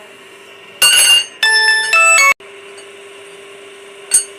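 Short electronic chime jingle: a bright ringing note about a second in, then a quick run of stepped tones that cuts off abruptly. A single click comes near the end.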